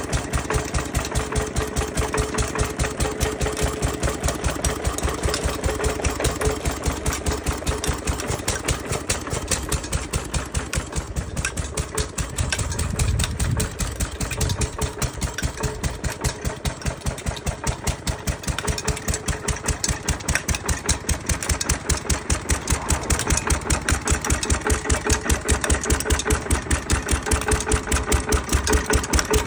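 Ruston Hornsby single-cylinder stationary engine running at a steady rapid beat, belt-driving a reciprocating power hacksaw. A brief low rumble comes about thirteen seconds in.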